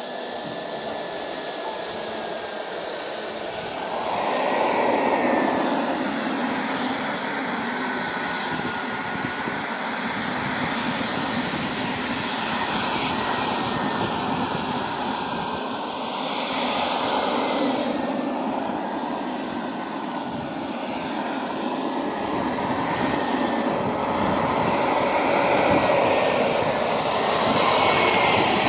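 Small jet turbine of a Freewing F-22 RC model jet running as the plane taxis, a whine that rises and falls with the throttle over a steady rushing hiss. It grows louder about four seconds in and again near the end.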